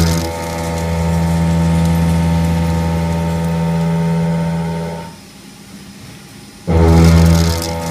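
Kitamura HX400G horizontal machining center face milling 1045 cold-finished steel with a 2-inch five-insert shell mill at 1000 RPM: a loud, steady low drone while the cutter is in the steel. The drone drops out for about a second and a half just after five seconds in, then comes back loudly.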